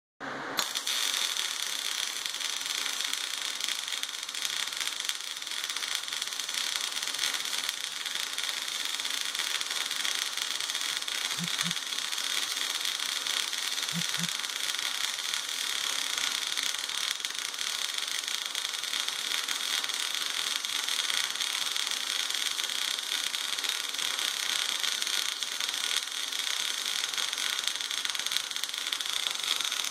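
Automated MIG welding arc running on a steel driveshaft tube: a steady, unbroken hiss that strikes up about half a second in.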